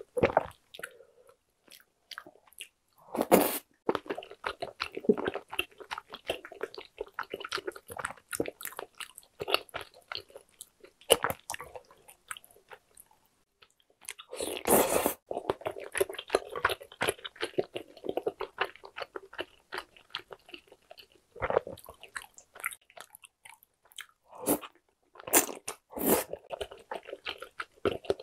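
Close-miked chewing and biting of spicy tteokbokki (rice cakes and fish cake in sauce): steady wet, sticky mouth sounds with many small clicks, and louder bites every few seconds.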